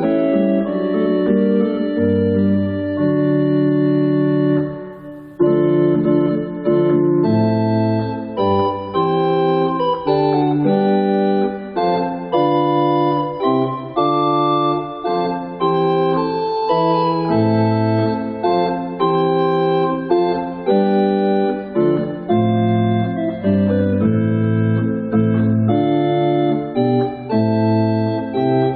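Church organ playing a slow piece of sustained full chords over a moving bass line, with a brief break between phrases about five seconds in.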